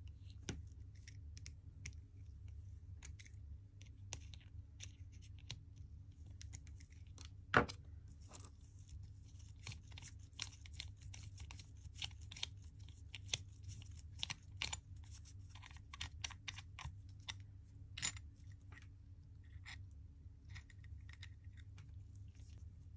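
Small metallic clicks and scrapes as a case-back wrench works the steel case back of a vintage Certina DS-2 loose, with two sharper clicks standing out, about eight and eighteen seconds in, over a low steady hum.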